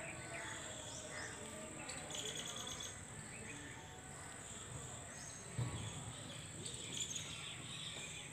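Outdoor ambience: a steady high-pitched insect buzz with scattered bird chirps, and a single thump a little past halfway.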